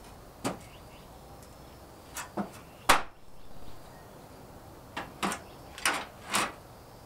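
Galvalume steel roofing sheet being bent over with a hand seamer, through four overlapping layers: a series of about eight short metallic creaks and clanks, the loudest about three seconds in.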